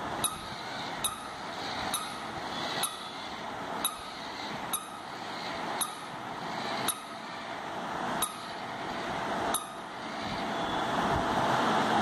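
Motor and gears of a battery-operated plush jumping puppy toy whirring, the whirr swelling and then dropping with a sharp click about every second as the toy jumps on a hard floor. The whirr grows louder near the end.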